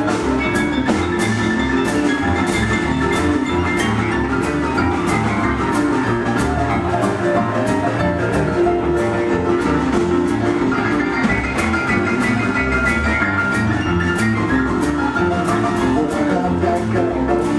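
Live band playing an instrumental boogie-woogie passage: piano over a repeating bass figure and a steady drum beat.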